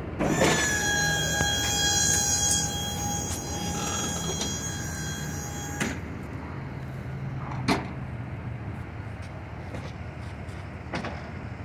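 Maxon truck liftgate's electric-hydraulic pump whining steadily as the platform moves, cutting off sharply about six seconds in. Later come two sharp metal clanks as the platform is handled.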